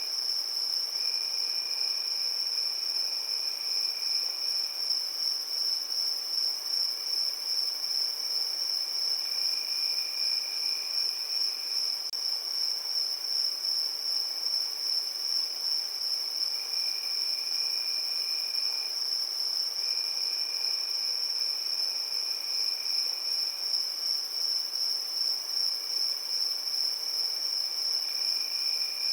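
Crickets chirping in a continuous high-pitched trill, with a second, lower-pitched trill joining in stretches of a few seconds at a time.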